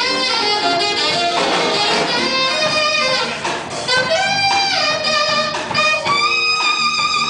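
Orchestra playing an instrumental piece: held melody notes that slide from one pitch to the next over a steady accompaniment.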